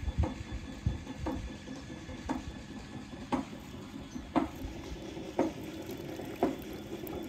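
Cast net being hauled in hand over hand through shallow water, with short swishes and splashes about once a second over a low rumble.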